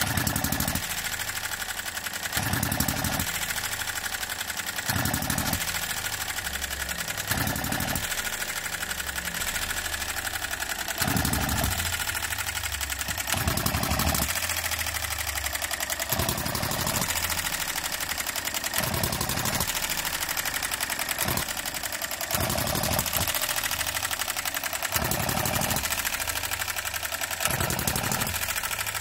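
Enjomor 6cc hit-and-miss model petrol engine running. It fires with a short low bang about every two to three seconds and coasts between firings with a fast, steady clatter.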